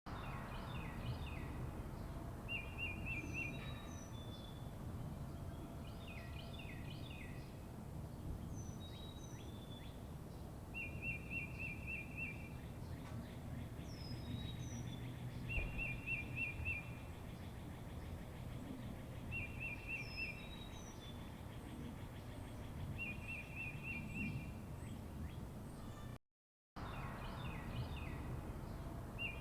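Songbirds chirping over a steady low background rumble: one bird repeats a short, rapid trill every few seconds, and others give short high downslurred notes. The sound drops out briefly near the end, then the same birdsong starts over.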